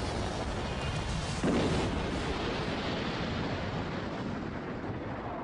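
Dramatized crash sound effect of a jet airliner diving into a swamp: a dense rushing noise, a heavier boom about a second and a half in, then a rumble that slowly fades.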